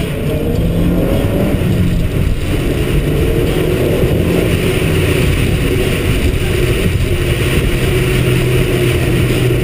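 Car driving along a road: the engine runs steadily under a continuous rumble of road and wind noise, and the engine note settles lower near the end.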